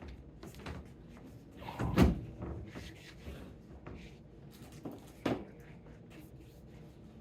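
Two knocks: a heavy thud about two seconds in and a sharper, lighter knock about five seconds in, with faint handling noises between.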